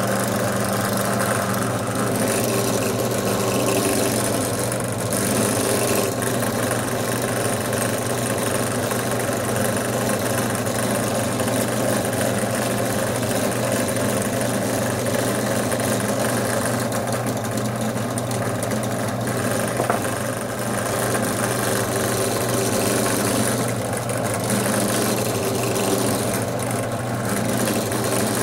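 Benchtop drill press motor running steadily, spinning a dowel wrapped in terry cloth that polishes the CA finish in the crotch of a wooden slingshot fork. One brief tap about two-thirds of the way through.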